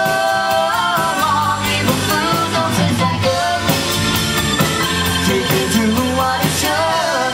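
Live rock band playing, with electric guitar, bass guitar, drum kit and keyboard under a sung lead vocal.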